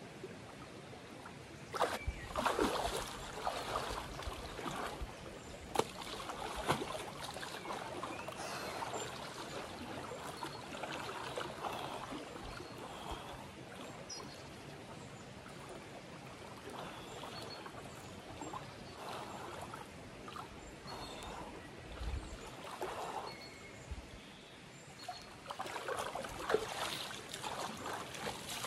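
Shallow river water sloshing and splashing in irregular surges as a person wades through it, over the steady flow of the stream, with a few sharp knocks in the first seconds.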